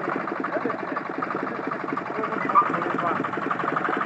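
A ploughing tractor's engine running with a fast, even chugging beat. There is one brief, sharper knock about two and a half seconds in.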